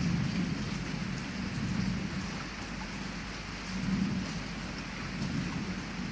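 Heavy rain falling steadily at a window, with low rolls of thunder that swell at the start and again about four seconds in.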